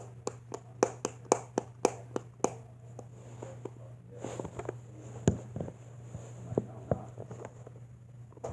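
A quick run of sharp clicks and taps, then softer scattered knocks and rustling from small objects being handled, over a steady low electrical hum.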